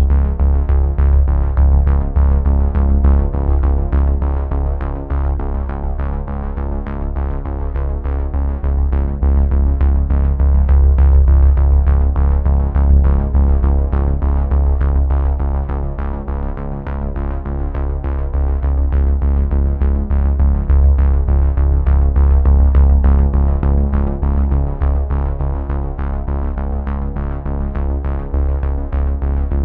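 Background music: a synthesizer track with a heavy, steady bass and a fast, even pulsing beat.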